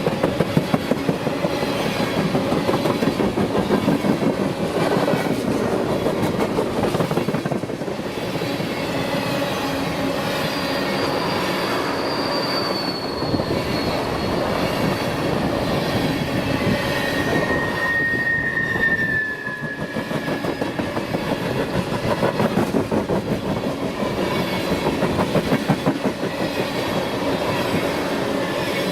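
BNSF freight train cars rolling past, wheels clicking rhythmically over the rail joints, with two brief wheel squeals, a high one about halfway through and a lower one a few seconds later.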